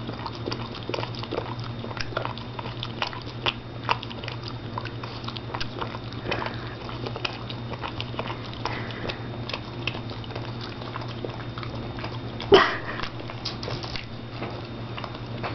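A Boston Terrier licking and smacking her lips over and over: quick, irregular wet clicks of tongue and mouth, with one louder short burst about twelve and a half seconds in.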